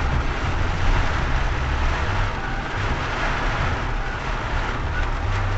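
Rain falling on a car's roof and windshield, heard from inside the cabin, over the steady low rumble of the car on a wet road.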